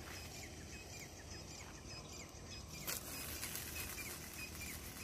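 Small birds chirping over and over in short, falling notes, over a low outdoor rumble. A brief sharp noise about three seconds in.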